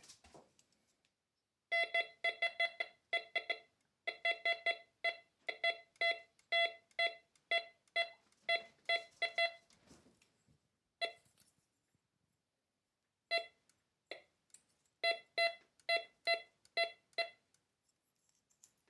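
MD4030 metal detector giving a clean, unbroken beep tone, repeated about three times a second as an aluminium target passes over the coil, then in shorter groups after a pause. This is the same clean tone the detector gives for silver, so aluminium cannot be told apart from noble metal by ear.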